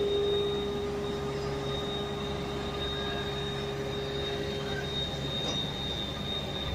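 Steady machinery running: a low hum with a constant mid-pitched tone and a thin, high whine held throughout.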